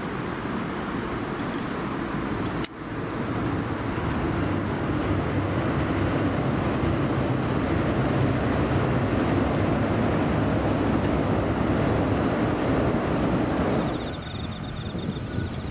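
Steady rumble of road traffic, broken by a sharp cut about three seconds in and turning quieter near the end, when a faint high steady tone appears.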